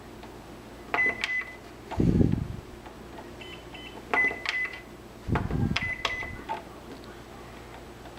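Microwave oven keypad beeping as its buttons are pressed to set the timer, in three quick clusters of short beeps, with two dull thuds in between.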